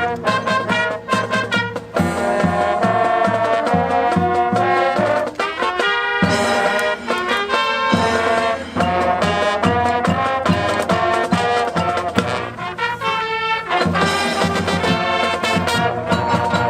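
High school marching band playing its competition show: a full brass section of trumpets and trombones over drumline percussion, with a brief drop-out about six seconds in before the whole band comes back in loudly.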